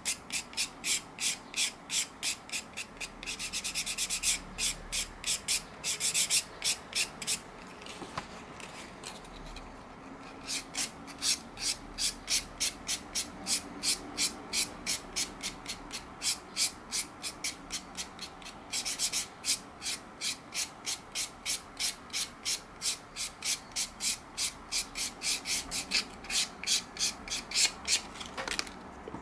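400-grit sandpaper rubbed back and forth along the edge of a leather strip, sanding down the dried first coat of edge paint to level it with the leather before the next coat. Even rasping strokes about three a second, with a brief pause partway through.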